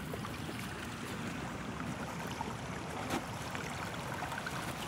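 Steady rush of a small stream running under snow and ice, with a single short knock about three seconds in.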